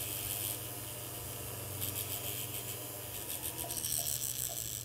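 Abrasive finishing wheel on a jeweler's rotary handpiece running and rubbing against the gold bezel of a ring in short scratchy spells: one at the start, one about two seconds in, and a longer one near the end. A low steady hum runs underneath.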